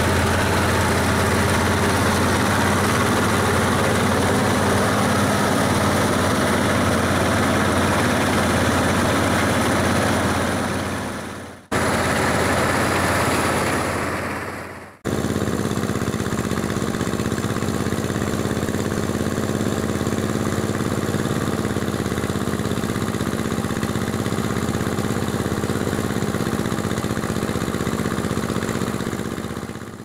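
Engine-driven rice thresher running steadily while threshing rice, a constant machine hum. The sound drops out briefly twice, about twelve and fifteen seconds in.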